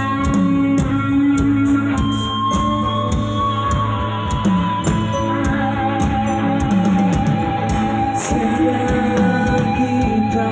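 Live rock band playing an instrumental passage: a sustained guitar line over steady drum-kit beats.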